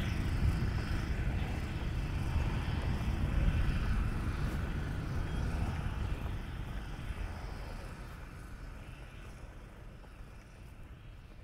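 Low rumble of a passing motor vehicle, fading steadily away over several seconds.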